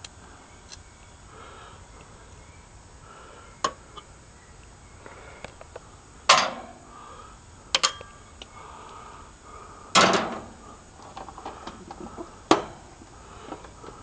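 Handling noises at an open air-conditioner condenser: scattered sharp clicks and knocks as tools and parts are moved and the run capacitor is handled, the loudest about six and ten seconds in. The unit is switched off, so no compressor or fan is running.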